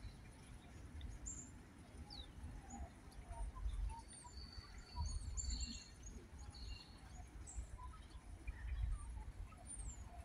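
Small birds chirping and twittering in short calls and quick falling whistles, over a low, uneven rumble.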